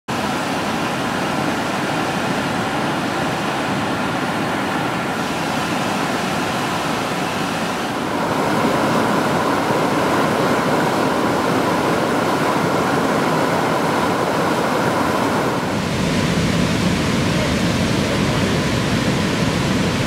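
Rushing white water of a river in flood after heavy rain: a loud, steady rush of rapids. The sound changes a little about 8 and 16 seconds in.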